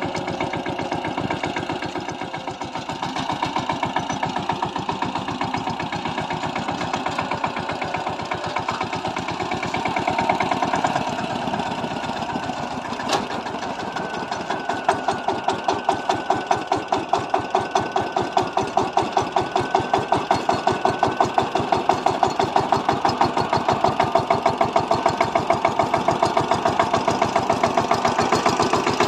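Kamco power tiller's single-cylinder diesel engine running steadily while tilling. From about halfway through, its regular beat grows stronger and more pronounced.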